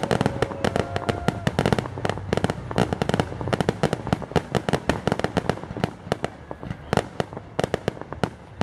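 Aerial fireworks display: a dense, rapid run of crackling pops and bangs from bursting shells and crackling stars, many reports a second.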